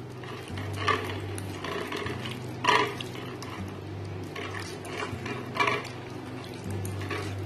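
A hand rubbing raw pabda fish coated in salt, turmeric and mustard oil on a glass plate: soft, wet handling noise with a few sharp clicks and taps against the plate, the loudest about two and a half seconds in, over a low steady hum.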